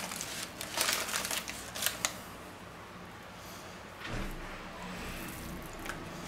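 Butcher's paper crinkling and rustling as it is unfolded and slices of raw beef are lifted out, with a few sharp rustles in the first two seconds and quieter handling after. A low rumble comes in about four seconds in.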